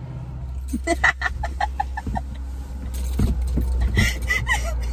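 A woman laughing in quick runs of short bursts, about a second in and again near the end, over the low steady hum inside a car.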